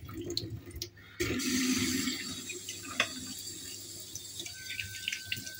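Kitchen tap running into a sink, turned on about a second in, with a single knock a couple of seconds later.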